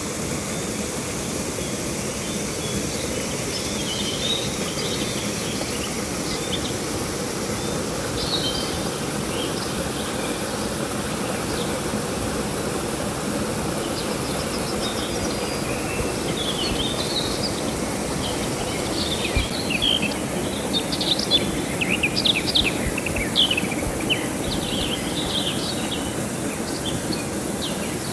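Steady rush of flowing river water, with small birds chirping over it, the chirps coming thicker past the middle.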